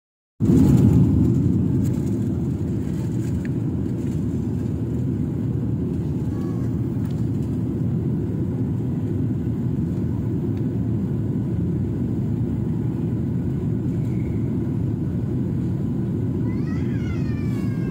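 Airliner cabin noise in flight: a steady low rumble of engines and airflow heard from a window seat.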